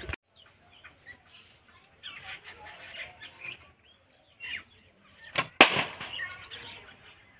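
A bamboo bow shot: two sharp cracks a fraction of a second apart about five and a half seconds in, the string snapping forward on release and the arrow striking the target.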